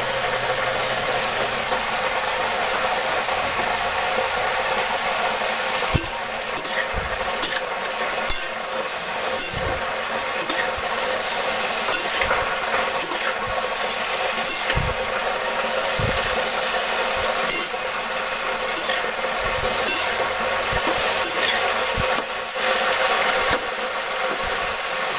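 Green papaya sautéing in a pan, a steady sizzle with a sharp click of a utensil against the pan now and then.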